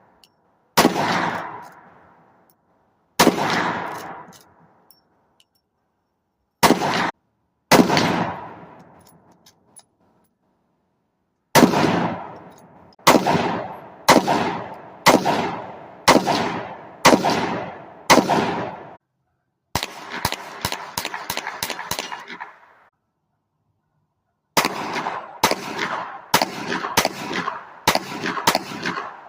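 Gunfire: single shots a few seconds apart, then a steady run of about one shot a second, a quick string of shots, and a fast volley near the end, each shot trailing off in echo.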